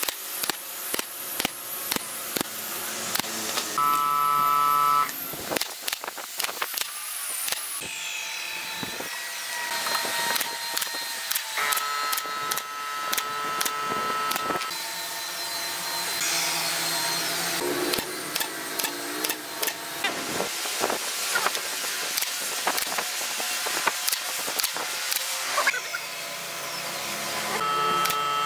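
Woodworking shop sounds: many sharp knocks and taps, broken up by a power tool's motor whining steadily in short runs of one to three seconds.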